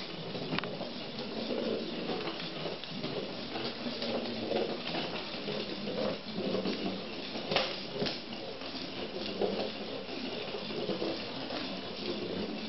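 Battery-powered Weazel Ball rolling on a hardwood floor, its motor whirring and the ball rattling steadily, with a few sharp clicks along the way.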